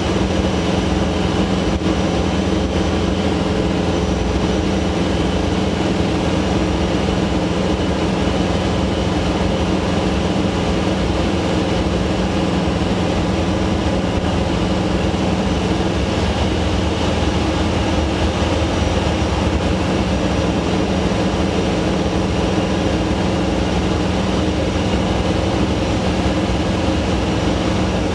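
Robin HR200 light aircraft's piston engine and propeller running steadily at constant power in level flight, heard inside the cockpit.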